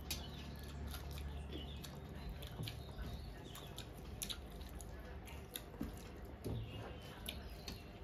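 Fingers mixing rice and curry on metal plates while eating by hand: soft squelching and scattered small clicks of fingertips against the plates.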